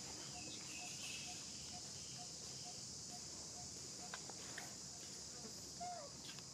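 Steady high-pitched drone of insects, with a run of short, evenly spaced low notes about twice a second through the first four seconds.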